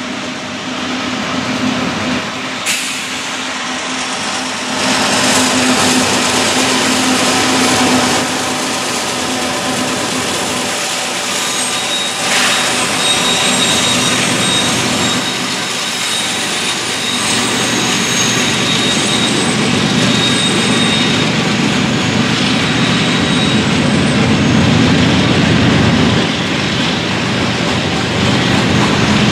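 Union Pacific freight train passing: the diesel locomotives go by with a steady engine hum, then covered hopper cars roll past with continuous wheel-on-rail noise and a faint high wheel squeal in the middle.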